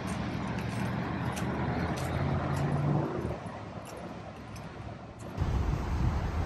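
Steady rumble of road traffic, with a low hum from a vehicle swelling about two to three seconds in and a few faint ticks. About five seconds in the sound changes abruptly to a louder, deeper rumble.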